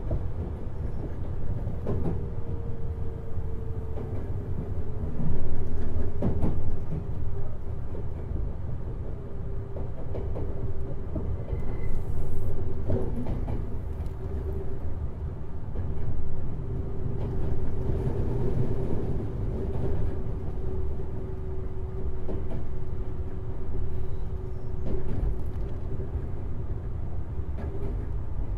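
Semboku 7020 series electric train running, heard from above the bogie of a motor car with Hitachi two-level IGBT VVVF traction equipment. A low rumble of wheels on rail comes with a steady whine that dips slightly in pitch about three seconds in and then holds, and there are occasional knocks.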